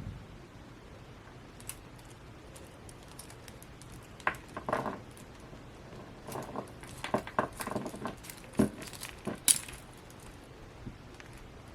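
Hands handling a Funko Pocket Pop! vinyl keychain figure and its packaging: a run of light clicks, taps and rustles starting about four seconds in, with the sharpest click near the end.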